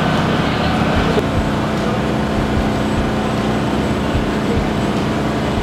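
Steady loud rumble with an even low hum that sets in about a second in.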